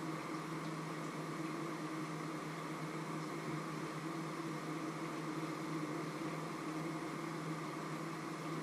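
A small motor running steadily: a constant low hum with a hiss over it.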